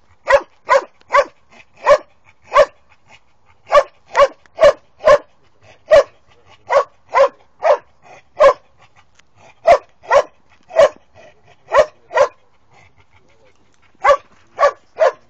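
A young Posavac hound barks repeatedly, baying at wild boar in a training pen. There are about twenty-two sharp barks, coming in quick runs of two to four with short pauses between.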